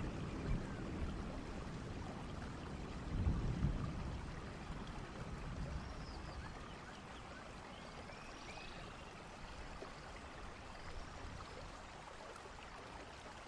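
Rain and running-water ambience, a steady hiss that slowly fades. A low rumble swells about three seconds in, and a few faint high whistles rise and fall above the hiss.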